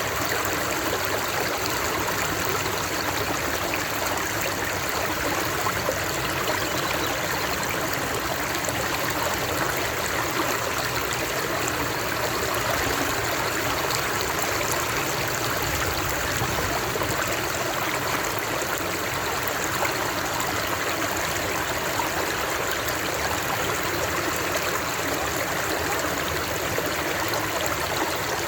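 Flowing water of a stream, a steady, even rush with no breaks or changes.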